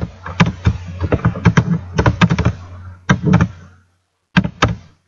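Computer keyboard keystrokes, a fast irregular run of clicks as code is typed, with a low steady hum underneath that cuts out about four seconds in, just before a last few keystrokes.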